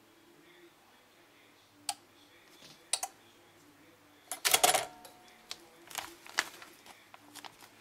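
Hand-operated PFS-200 impulse heat sealer sealing a poly bag: a few light clicks, then a louder clack and clatter about four and a half seconds in as the sealing arm is let up, followed by smaller clicks and plastic rustles.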